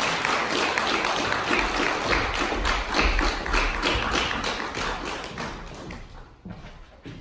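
Audience applauding, the clapping dying away over the last couple of seconds, with a couple of separate knocks near the end.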